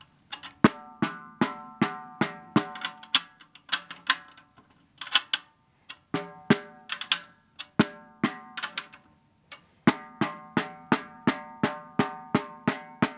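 Light stick taps on the batter head of a Sonor Signature Lite Birch 14x8 snare drum while a new Evans HD Dry head is tuned way too high to seat it. Each tap rings with a bright, high pitch, in runs of two or three taps a second broken by two short pauses.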